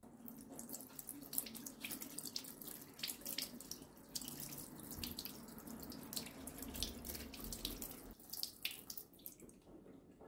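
Water from a tap running and splashing into a sink. It starts suddenly and tails off near the end.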